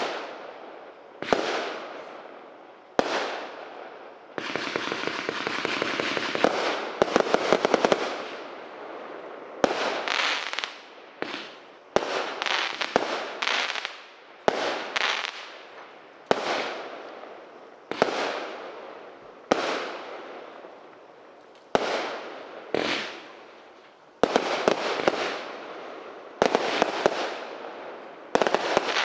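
Hit Man multi-shot firework cake firing shot after shot, about one sharp bang every one and a half to two seconds, each fading away. About five seconds in there is a long spell of continuous crackle ending in a run of rapid pops, and near the end the bangs come in quick clusters.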